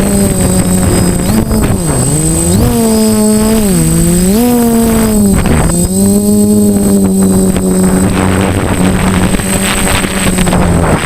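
DJI F450 quadcopter's motors and propellers droning loudly, the pitch dipping and climbing several times as the throttle changes, then holding steady.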